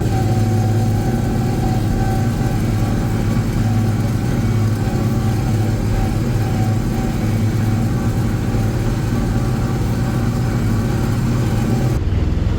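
A vehicle engine running at a steady speed, holding one even pitch throughout, with a change in the sound near the end.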